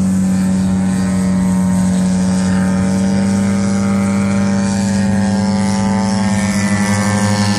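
Engine and propeller of a 168-inch Aero Works Carbon Cub RC airplane running steadily in flight, with the level starting to waver near the end as the plane pulls vertical.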